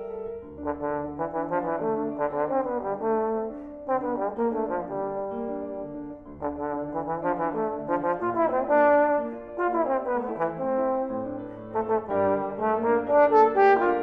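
Trombone playing a melodic line in several phrases with short breaks, accompanied by a grand piano. The trombone enters about half a second in, over sustained piano notes.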